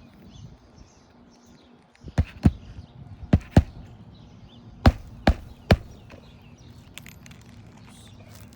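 Hammer strikes on an asphalt shingle roof: seven sharp knocks in quick groups of two and three, about two seconds in and running to about the middle.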